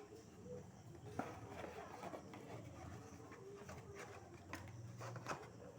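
Faint, scattered clicks and light knocks of a plastic LED lamp housing being handled and opened, over low room noise.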